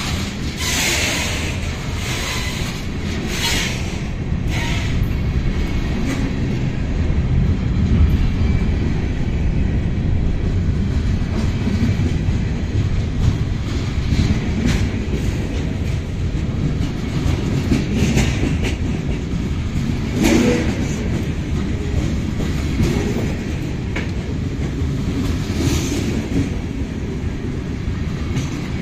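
Freight train of covered hoppers and gondolas rolling past at close range: a steady low rumble of steel wheels on rail with clickety-clack over the joints. A few sharp knocks stand out, several near the start and a handful later on.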